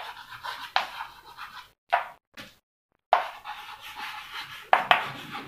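Chalk writing on a blackboard: a string of scratchy strokes, each starting with a sharp tap of the chalk and fading off, about six in the few seconds.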